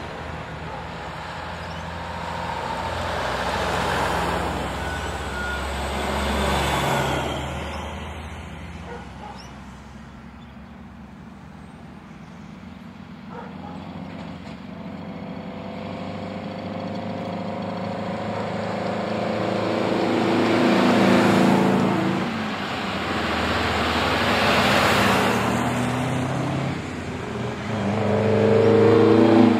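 Vintage diesel trucks driving past one after another, each engine note swelling as it nears and fading as it goes. The loudest passes come about two thirds of the way in and at the very end, where a truck's engine drone climbs as it approaches.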